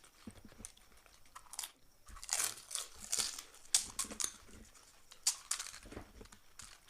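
Crunching and chewing of fuchka, crisp hollow pani puri shells, close to the microphone, in irregular bursts that are busiest from about two seconds in.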